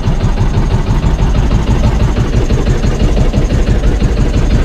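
Outrigger fishing boat's engine running steadily, a fast, even chugging that does not change.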